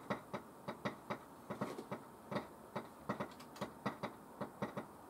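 Light, irregular clicks, roughly three to five a second.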